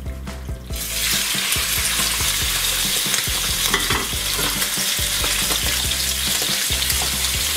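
Raw chicken livers dropped into hot vegetable oil in a non-stick frying pan: a sizzle starts suddenly about a second in and keeps going steadily, with a few light knocks of a wooden spatula moving the livers.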